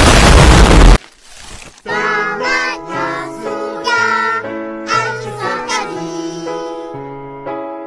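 A loud burst of noise lasting about a second, then after a short lull a song begins, with singing voices over steady held chords.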